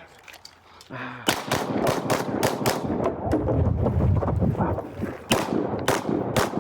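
Glock 19 9mm pistol fired in a fast string of shots about a second in, then a pause of roughly two and a half seconds, then more shots near the end.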